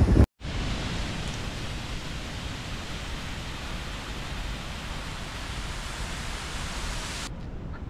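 Steady rushing hiss of a tall waterfall pouring down a rock face and splashing at its foot, cutting off abruptly near the end.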